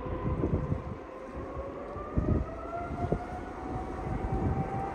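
Boeing 777-300ER's GE90 jet engines spooling up, a steady whine rising slowly in pitch as they build toward takeoff thrust. Wind buffets the microphone throughout.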